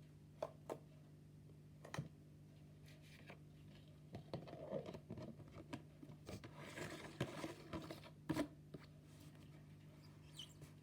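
Slime being handled and squeezed by hand, giving off a few sharp clicks, then a busy run of crackling and popping clicks from about four seconds in, ending in one loud click.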